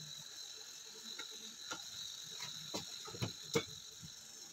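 Dry bread crumbs crackling and rustling as a grated potato ball is rolled and pressed in them on a glass plate, with scattered light clicks and a few sharper ticks after the middle.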